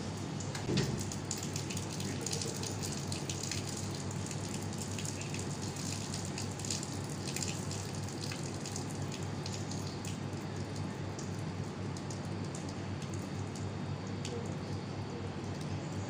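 Steady outdoor background noise with many short, faint high-pitched ticks or chirps scattered through it, and a single low bump about a second in.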